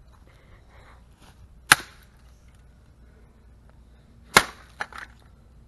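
Two hard blows of an axe smashing into a broken radio, about two and a half seconds apart, each a sharp crack with a short ring after it; small clatters of breaking pieces follow the second blow.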